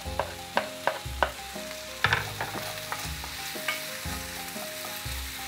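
Sliced porcini, onion and garlic sizzling in a hot enamelled cast-iron frying pan while a wooden spatula stirs them, knocking against the pan every second or so.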